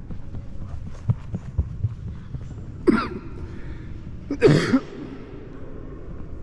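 Two short shouts from children at play, about a second and a half apart, the second louder, over a low rumble with a few soft thumps before them.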